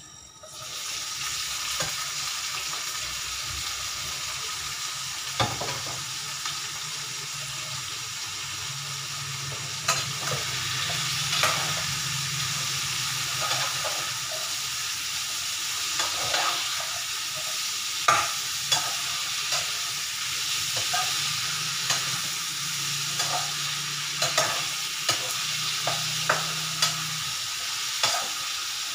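Food sizzling as it fries in a pan, starting about half a second in, while a spatula stirs it and knocks against the pan with short clacks that come more often in the second half.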